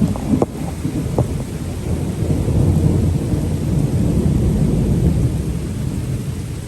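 Rain falling through a long low rumble of thunder that swells in the middle and eases off near the end. A few sharp drip ticks sound in the first second or so.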